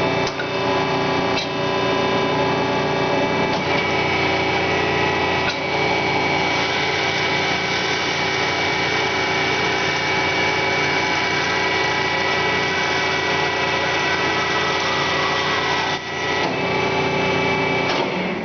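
A 1980 Marvel 81A9 vertical band saw with a 10 HP motor running steadily, giving a constant whine of several steady tones with a few faint clicks.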